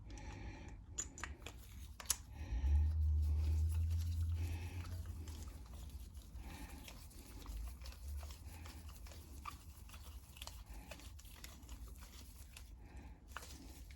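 Small clicks, taps and rustling as carburetor parts are handled and fitted back together by hand, with a low rumble for a couple of seconds about three seconds in.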